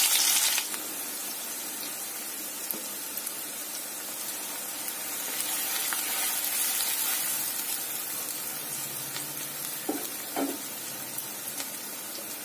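Freshly chopped onions sizzling in hot oil in a nonstick kadai: a loud burst as they hit the oil, dropping within the first second to a steady frying sizzle. The sizzle swells a little midway as a wooden spatula stirs them.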